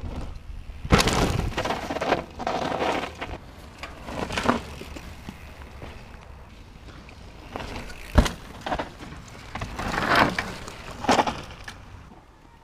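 Mountain bike ridden over loose gravel and rocky dirt trail: tyres crunching and the bike rattling in several short rough bursts, with a sharp knock about eight seconds in.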